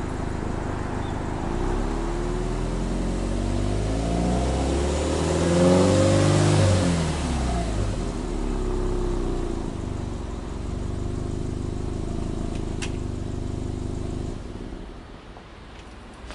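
Subaru Impreza WRX STI's turbocharged flat-four (boxer) engine heard from its exhaust: idling, then revved in neutral in one slow rise in pitch that peaks about halfway through and falls back to idle. About fourteen seconds in, the engine sound drops away as the engine is shut off.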